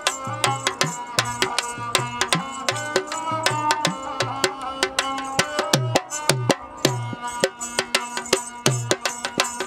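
Rhythmic percussion-driven music: fast, even drum strokes with deep drum notes that bend in pitch, over sustained melodic tones.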